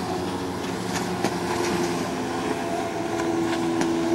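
Motorboat engine running steadily while towing a wakeboarder, over a wash of water and wind noise, with a few brief sharp clicks.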